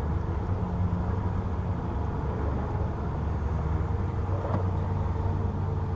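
A steady low mechanical hum, with a light click about four and a half seconds in.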